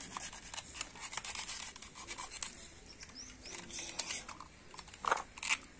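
Toys being handled: scattered light clicks and scratches, with two sharper clicks near the end.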